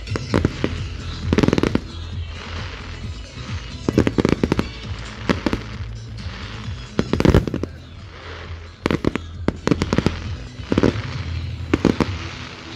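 Aerial fireworks shells bursting, with a sharp bang every second or two and crackling stars sizzling between the bangs. Music plays underneath.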